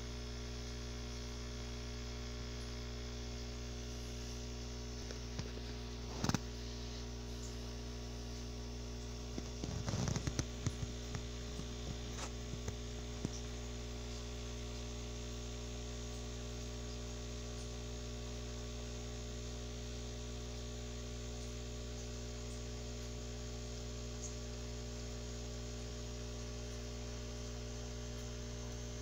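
Steady low electrical hum made of several steady tones, with a sharp click about six seconds in and a short run of taps around ten seconds in.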